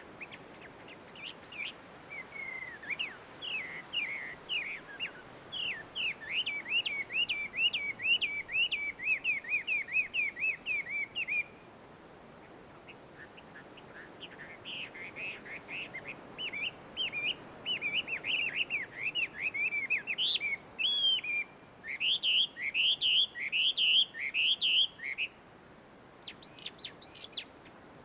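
Chinese hwamei (gabichō) singing: long runs of rapid, varied whistled notes that rise and fall. A first run breaks off a little before halfway, and after a couple of seconds' pause a second long run follows, with a few higher notes near the end.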